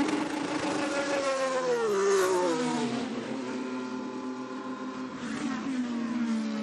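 IndyCar's twin-turbo V6 engine, its pitch falling as the car slows: one long drop from about half a second in to three seconds, then lower steady running and a second shorter drop near the end.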